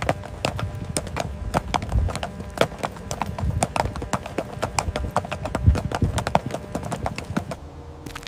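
A rapid, uneven run of sharp knocks, several a second, that stops about a second before the end.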